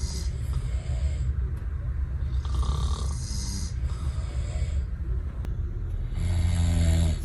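A person snoring in slow, repeating breaths, a snore roughly every three seconds, with a louder, deeper snore near the end.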